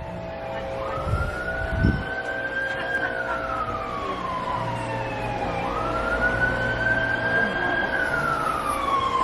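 Emergency vehicle siren wailing, its pitch rising and falling slowly twice, over a low rumble.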